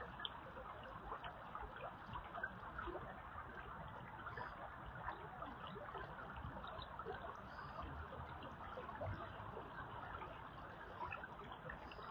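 Shallow creek water flowing and trickling steadily.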